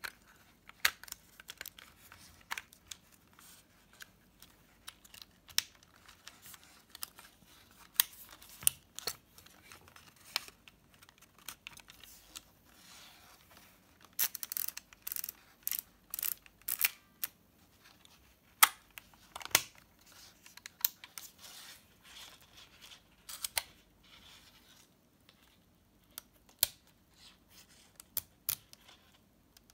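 Scattered plastic and metal clicks, snaps and rustles of a LOMO Compact LC-A 35mm film camera being handled while film is loaded. A quick run of clicks comes about halfway through, and sharp single clicks come here and there.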